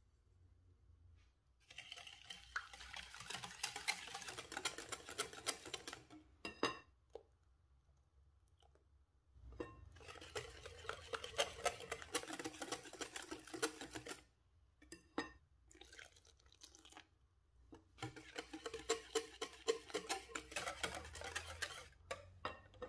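Wire balloon whisk beating eggs and sugar in a glass bowl: rapid clicking and scraping of the metal wires against the glass, in three bursts of about four seconds each with short pauses between them.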